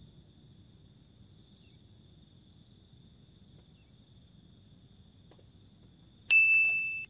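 A faint steady high-pitched hum in the background, then, about six seconds in, a sudden loud electronic beep: one steady high tone with a brief higher blip at its start, lasting under a second and cutting off abruptly.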